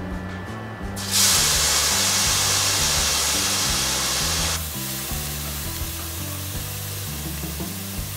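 Thin slices of marinated beef sizzling as they are laid into a hot stainless-steel pan to sear. A loud sizzle starts about a second in and settles to a quieter sizzle after about four and a half seconds. Background music plays throughout.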